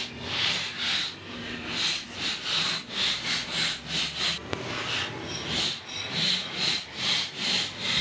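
Hand wire brush scrubbed back and forth over the steel wheel studs of a skid steer's axle hub, in quick strokes of about two or three a second, with a couple of short pauses.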